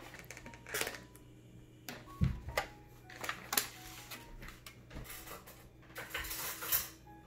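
Plastic takeout food containers and dishes being handled on a wooden table: irregular clicks, knocks and crinkly rustles as lids come off and containers are moved and set down.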